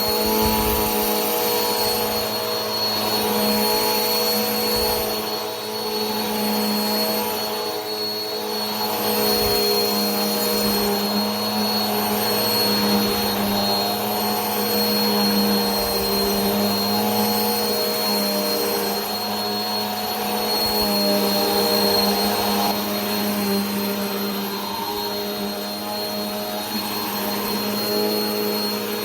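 Vacuum cleaner running steadily: a constant motor hum with a thin high whine over a hiss of rushing air, swelling and easing slightly every few seconds.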